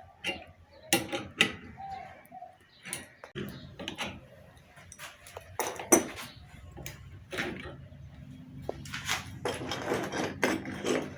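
Irregular metal clicks, taps and knocks of hand tools working on a water pump's motor shaft to take off a ball bearing, with a faint steady hum and busier clatter near the end.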